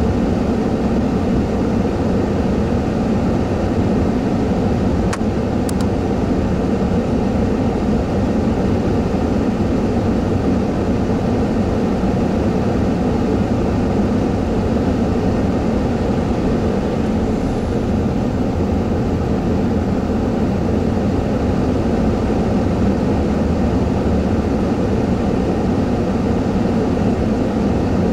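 Steady idling of a parked vehicle's engine heard from inside its cab, a low even rumble with two faint ticks about five seconds in.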